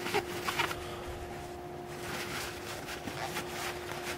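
A paper towel rubbing on a brass airsoft gearbox cylinder in a few quick scraping strokes at the start and faintly again near the end, over a steady faint hum.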